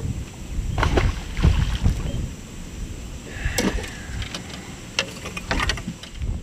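Wind buffeting the microphone, with a scatter of sharp knocks and clicks from fishing tackle being handled on a boat deck.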